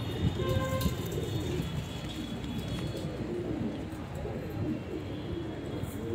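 Domestic pigeons cooing: low, wavering coos repeating in short phrases.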